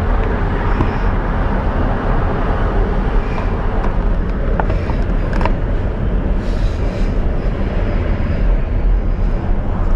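Car driving on the road: a steady, loud low rumble of road and engine noise.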